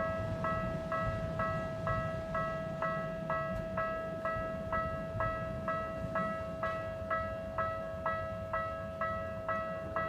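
Japanese railroad crossing warning alarm ringing its 'kan-kan' tone, about two strikes a second over a steady underlying tone, signalling an approaching train as the crossing barriers lower.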